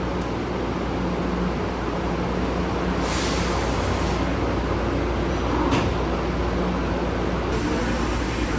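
Steady low hum of an automated airport-connector train at the platform, with about a second of hiss three seconds in and a sharp knock near six seconds in as its sliding doors close.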